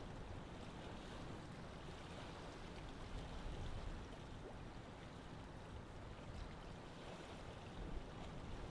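Steady, even background noise with a low rumble and hiss, with no speech and no distinct events.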